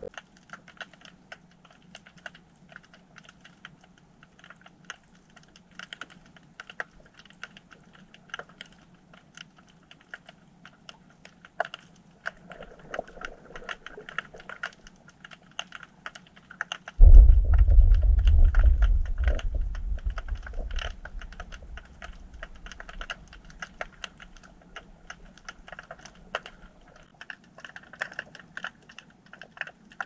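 Underwater sound in a harbour: a constant crackle of small clicks, then a little over halfway through a sudden deep rumble from a small earthquake that fades away over about four seconds.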